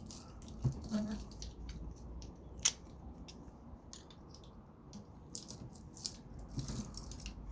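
Grooved wire-cutter pliers working on copper scrap, a run of sharp metallic clicks and snips with one loud snap about two and a half seconds in.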